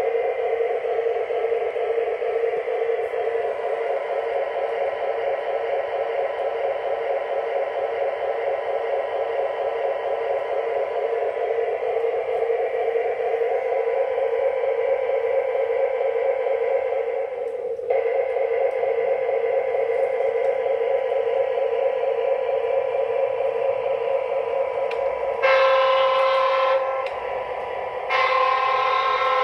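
The MTH O-scale FP45 model diesel locomotive's onboard sound system plays a steady diesel engine rumble through its small speaker. The engine sound drops briefly partway through. Near the end the model's horn sounds twice, two blasts of about a second and a half each, about two and a half seconds apart.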